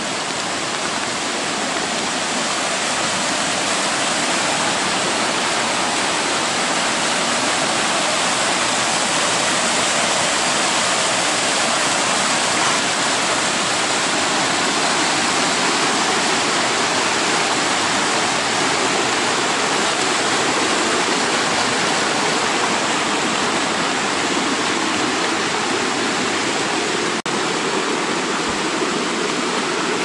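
Fast mountain stream rushing over rocks and boulders, a loud, steady wash of water. One brief click near the end.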